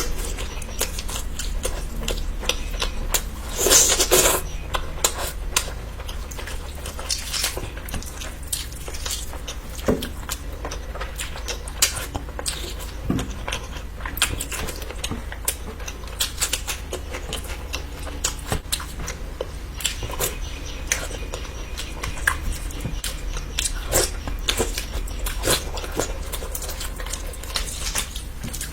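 Close-miked eating of curry: wet chewing and mouth clicks with scattered light taps against a plate, and a louder, noisier burst about four seconds in.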